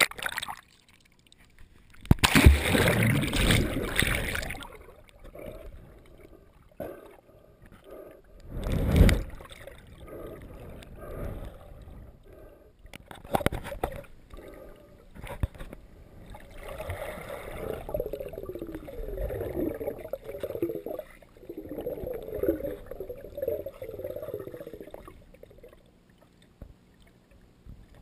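Lake water sloshing and splashing around a hand-held waterproof camera as it goes under and breaks the surface. There is a loud splash about two seconds in and another about nine seconds in, then a long run of bubbling gurgles in the second half.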